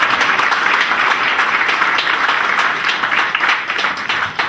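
Audience applauding, a dense steady clapping that begins to thin out into fewer, separate claps near the end.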